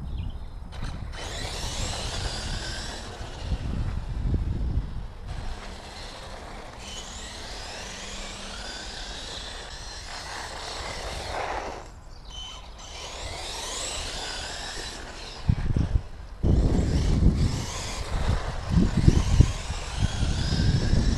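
Traxxas 1/16 E-Revo's brushless motor, run on 3S, whining as the RC truck drives, its pitch sliding up and down again and again as it speeds up and slows. A low rumble grows louder over the last five seconds.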